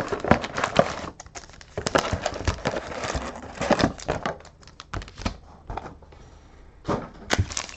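Plastic wrapping and cardboard of a sports-card box being opened and the card packs handled: a rapid run of crinkles and light taps, with a quieter spell about six seconds in.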